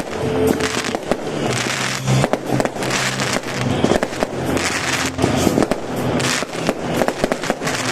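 Aerial fireworks bursting and crackling in quick, irregular succession, over music playing through loudspeakers.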